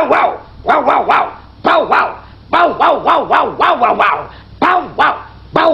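A dog barking over and over, short barks in quick runs of two or three, about two to three a second.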